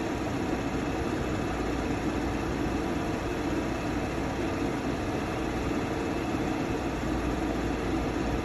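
Laser back-glass removal machine running steadily while its laser burns through the adhesive under an iPhone 14 Pro's back glass, an even mechanical noise with no break.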